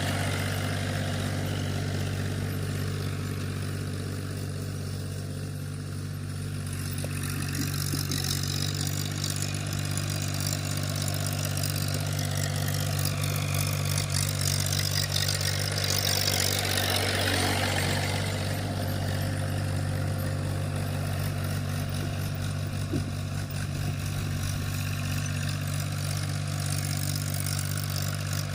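Tractor's diesel engine running steadily while ploughing a field, a constant low engine note with some changing noise over it.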